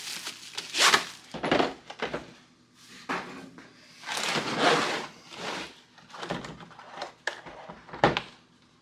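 Plastic packaging rustling as a Pittsburgh socket set is pulled from its wrapper and box, broken by a few knocks of its hard plastic case on the wooden bench. A sharp click near the end as the case's latches are worked.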